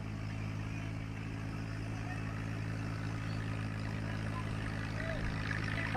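Deutz-Fahr 50 tractor's diesel engine running steadily under load while pulling a disc harrow, growing slightly louder as it comes closer.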